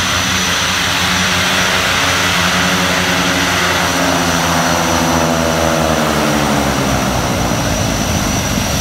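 Beechcraft King Air's twin Pratt & Whitney PT6A turboprops running at taxi power close by, a steady high turbine whine over the propeller drone.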